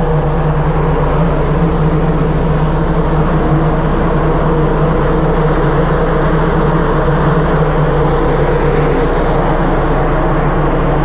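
Steady drone of a tanker ship's running machinery and ventilation, an even hum with a low tone that holds unchanged.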